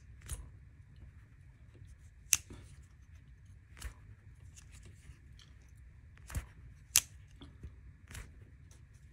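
Spyderco Chaparral lockback folding knife being opened and closed by hand: about six sharp clicks as the blade snaps open and shut and the lock engages, two of them much louder than the rest.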